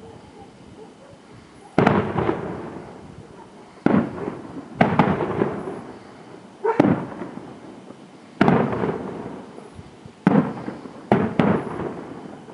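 Aerial fireworks shells bursting, about eight sharp bangs one to two seconds apart, each followed by a long echo that fades away.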